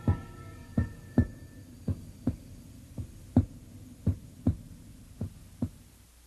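Heartbeat-like sound effect ending the title music: pairs of soft low thumps, about one pair a second, with a chiming tone fading out in the first second or two.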